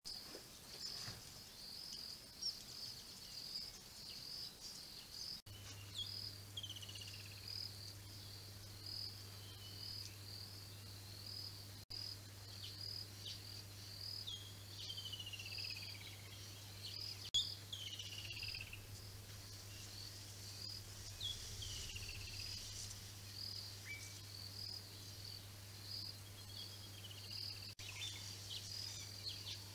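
Bushveld ambience: an insect chirping steadily at an even rhythm, with several descending bird whistles now and then.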